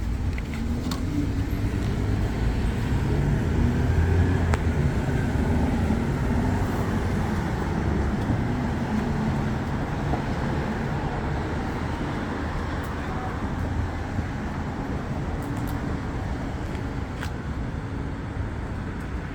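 City street traffic: a steady rumble of motor vehicles, swelling as one passes close about four seconds in.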